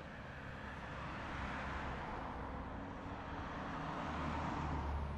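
Road traffic: passing cars whose tyre and engine noise swells and fades twice. The second pass carries a heavier low rumble and is the loudest, near the end.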